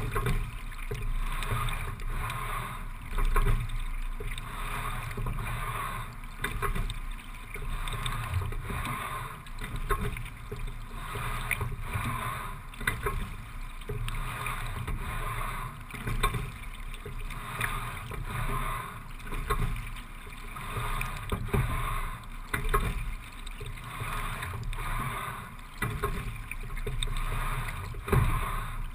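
Single racing scull being rowed at a steady low rate of about 17–18 strokes a minute: water washing along the boat, with a surge of sound roughly every three and a half seconds, once per stroke.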